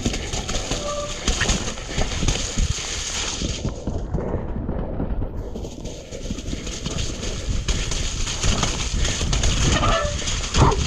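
Commencal Clash mountain bike riding fast down a wet, muddy forest trail: tyres rolling and hissing over soaked ground and the bike rattling and knocking over roots, under heavy wind buffeting on the camera microphone.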